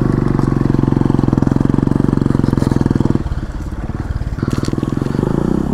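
Motorcycle engine pulling under throttle through a rocky river crossing. It runs steady and strong, drops back about three seconds in, then picks up again with its pitch rising near the end.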